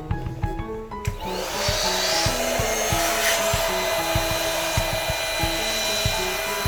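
Electric air pump running steadily as it inflates an air mattress, starting about a second in with a steady hum over a rush of air, while background music plays.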